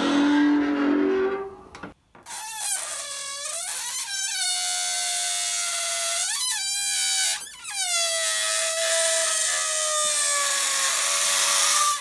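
Air squealing out through the stretched neck of a balloon: a loud, reedy whine that swoops up and down and breaks off a few times, then settles into a steady tone that slowly falls in pitch.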